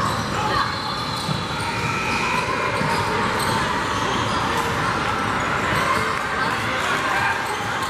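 Basketball game noise in a large gym hall: basketballs bouncing on the hardwood court over a steady hubbub of players' and spectators' voices.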